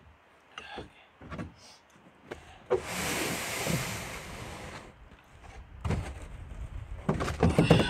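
A rough scraping rush starting with a click and lasting about two seconds, then a quick run of knocks and thumps as a wooden paddle and gear are handled in a canoe.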